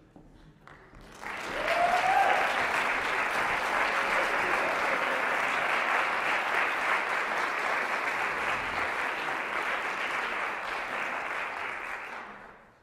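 Concert-hall audience applauding as the performers come on stage. The applause swells in about a second in, holds steady, and dies away just before the end.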